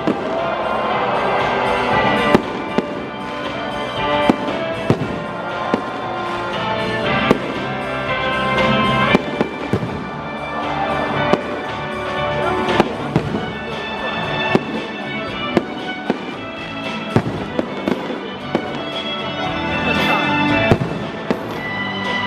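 Victory fireworks going off in a string of sharp bangs, one every second or two, over loud music.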